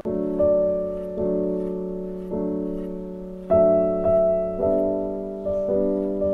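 Background music: slow piano-like chords, each struck and left to fade, changing about once a second.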